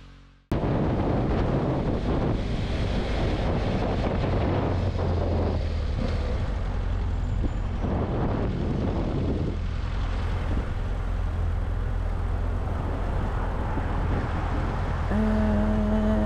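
Motorcycle engine running low and steady with road and wind noise, heard from on board while riding through city traffic; it cuts in suddenly about half a second in. Near the end a steady pitched tone sounds for about two seconds.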